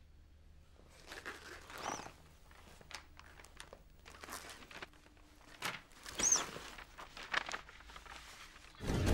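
Brown paper envelope rustling and crinkling in short, irregular spells as it is handled and opened. Music comes in just before the end.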